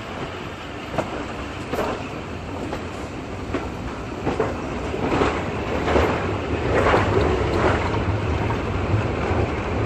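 Train running on the line, with a regular knock about once a second that grows louder from about four seconds in.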